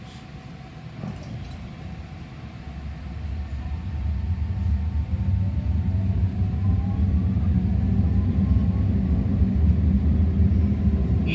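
Ottawa O-Train light rail car heard from inside as it pulls out of a station and accelerates. A low rumble grows steadily louder over the first few seconds, with a faint rising whine from the traction motors.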